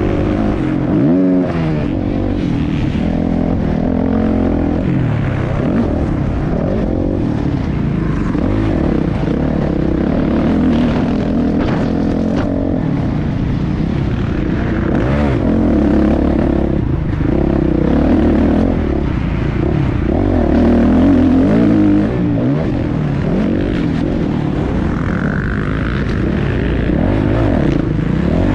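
Motocross dirt bike engine under hard riding, revving up and down over and over, its pitch rising and falling every second or two.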